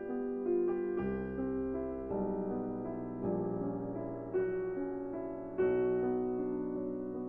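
Background music: gentle piano or electric piano playing slow chords, with new notes struck about once a second.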